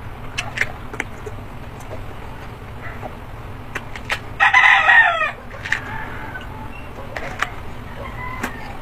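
Crisp bites and chewing of a raw guava, with scattered short crunches. About halfway through, a rooster crows once, under a second long with a falling end, the loudest sound.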